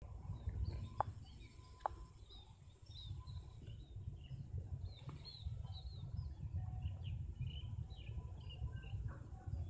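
Outdoor ambience: many small birds chirping in short high notes throughout, over a steady low rumble and a thin steady high-pitched tone.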